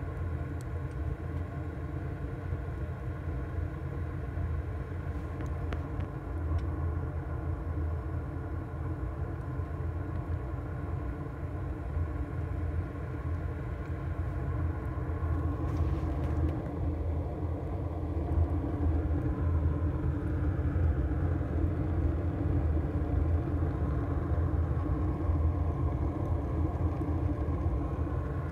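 A coal boiler's retort burner running under forced draught: the WPA 07 blower fan hums steadily and the fire gives a low, even rumble. It gets a little louder about halfway, with a faint click.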